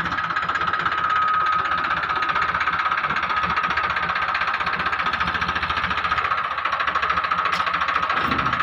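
Mini loader tractor's engine running steadily with a fast, even pulsing beat and a steady high whine over it.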